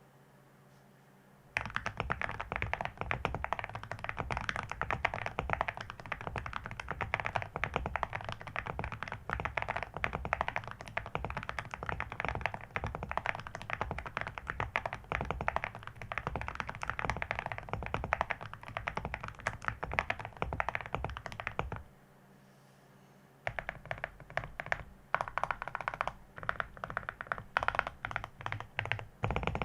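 Fast, continuous typing on a custom mechanical keyboard (Akko SPR75 with full-metal keycaps), with a creamy key sound. It starts about a second and a half in, stops for a moment near the last third, then resumes.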